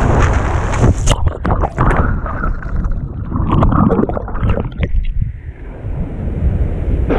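Wind buffeting the microphone of a board rider's camera, then about a second in the camera goes underwater in a wipeout: muffled churning whitewater with crackling bubbles and splashes, giving way near the end to the steady rush of broken surf once it surfaces in the foam.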